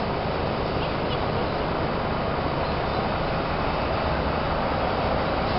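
Steady outdoor background rumble, strongest in the low end, with no distinct events standing out.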